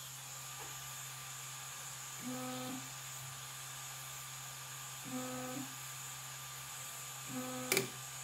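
E3D Hemera direct-drive extruder's stepper motor buzzing in three short bursts of about half a second, a few seconds apart, as it feeds filament out of the heated nozzle, over a steady hum from the print head's fans. A sharp click comes near the end, right after the third burst.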